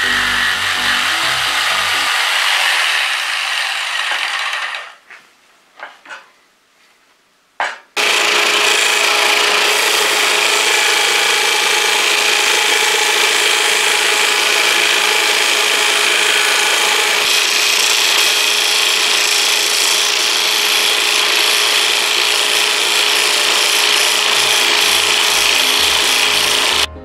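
Bosch jigsaw with a T119 blade cutting thick UHMWPE plastic sheet for the first few seconds, then a short lull with a few brief knocks. After that a belt sander runs steadily with a constant hum while a plastic puck is held against the moving belt, grinding its edge.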